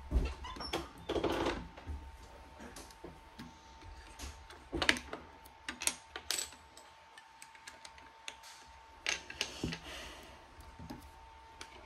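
Plastic building bricks clicking and knocking together and against a countertop as they are handled and fitted together, in irregular clusters of small sharp clicks.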